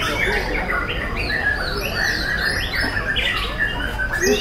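White-rumped shamas singing in competition cages: a dense run of overlapping whistled phrases, rising and falling glides and quick chattering notes from more than one bird, over a low background rumble.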